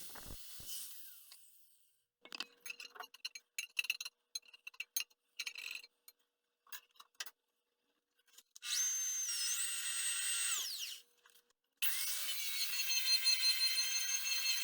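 A small electric power tool sanding a rusty cast iron pan. A few seconds of scattered scraping clicks come first, then two separate runs of the motor with a steady whine; the first run ends with the whine falling in pitch.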